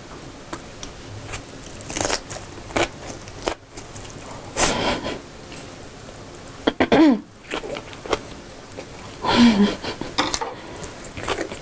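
Close-miked chewing of a large mouthful of gimbap, broken by a few short muffled vocal sounds through the full mouth, throaty and cough-like; two of them, around seven and nine and a half seconds in, fall in pitch.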